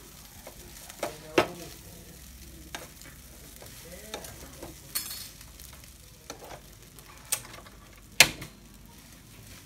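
Rice frying in a pan, a low sizzle under the scrape and clatter of a plastic spatula stirring it against the metal pan: about seven sharp knocks spread through, the loudest a little past eight seconds in.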